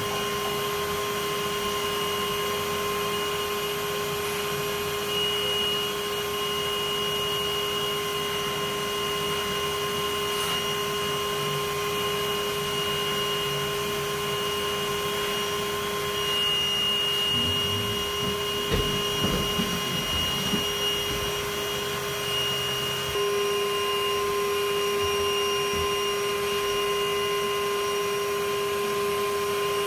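Bee vacuum running steadily with a constant whine, sucking honey bees off exposed comb through its hose. A few knocks come about two-thirds of the way through.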